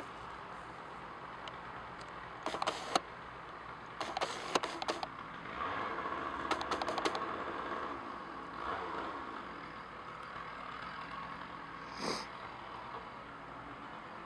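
Clicks and rattles of a DSLR camera and its zoom lens being handled and focused, in three short clusters in the first half. Underneath is a faint steady engine hum that swells for a couple of seconds in the middle, with a single brief louder sound near the end.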